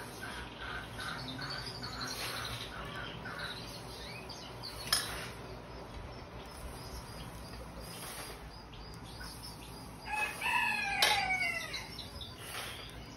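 A rooster crows once, a drawn-out call falling in pitch, about ten seconds in; it is the loudest sound. Before it a small bird chirps in quick repeated notes, and there is a single sharp click about five seconds in.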